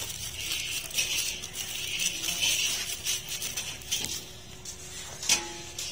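A high, hissing outdoor sound that swells and fades about once a second, with a single sharp metallic clink and brief ring about five seconds in, as of a utensil knocking the iron karahi.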